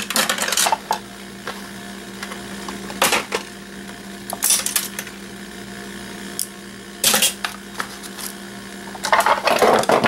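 Intermittent clicks and clatters of small plastic parts, a circuit board and hand tools being handled and set down while alarm-system devices are taken apart, busiest near the end, over a steady low hum.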